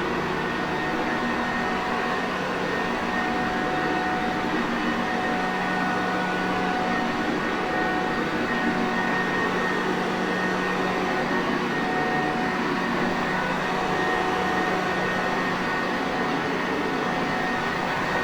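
Sanitaire Perfect upright vacuum cleaner running steadily: a constant motor rush with a low hum and a higher steady whine, unchanging throughout.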